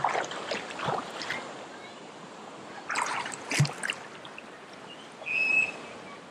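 Steady rush of the Spruce Flats Falls waterfall and its stream, broken by a few short sharp splashing sounds near the start and again about three seconds in.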